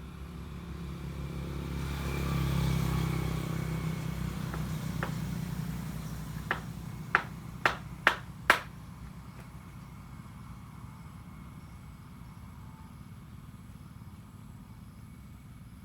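A motor vehicle passes, swelling and fading over the first several seconds. Then come five sharp knocks in quick succession: the wooden bed frame being tapped to bring a leg into line while it is levelled.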